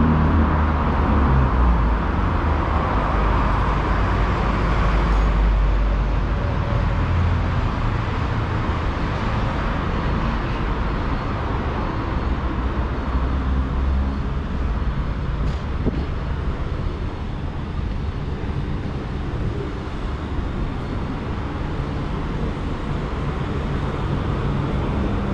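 Steady road traffic on a wide city avenue, cars passing continuously. A nearby vehicle's engine is louder in the first several seconds, then eases into the general traffic hum.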